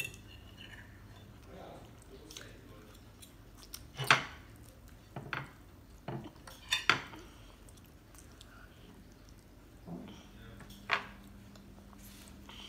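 Metal forks clinking and scraping against ceramic plates in short, scattered knocks, the loudest about four seconds in.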